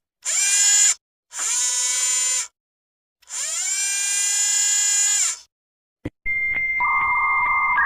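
Robotic motor-whir sound effect: three separate whirs of a small motor, each rising in pitch as it starts and dropping as it stops, the third about two seconds long. About six seconds in, after a click, a steady electronic tone begins, joined by a second lower tone and stepping up near the end.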